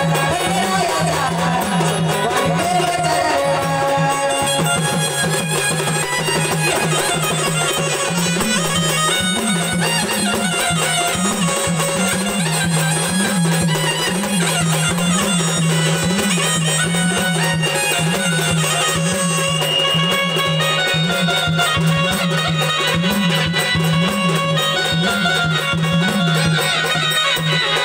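Instrumental folk music from a jagran gondhal ensemble: a steady droning tone under a fast, even drum beat, with no singing.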